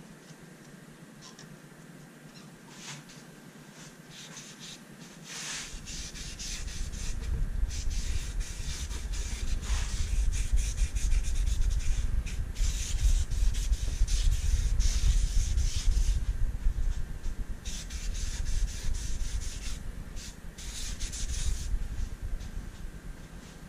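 Cloth pad rubbing dye into the wooden top of a thinline Telecaster guitar body in quick, uneven strokes, starting about five seconds in and easing off near the end, with a low rumble under the rubbing.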